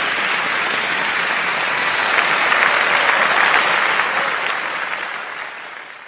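Applause, a dense patter of many hands clapping, swelling slightly in the middle and then fading out over the last second and a half.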